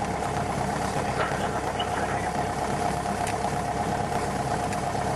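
Piston engine and propeller of a single-engine light aircraft running steadily at low power, heard from inside the cockpit.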